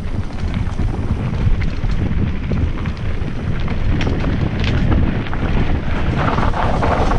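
Wind buffeting the microphone of an action camera on a mountain bike descending fast, with the rattle and knocks of the bike and tyres over stones and leaf litter. The rough noise grows brighter near the end.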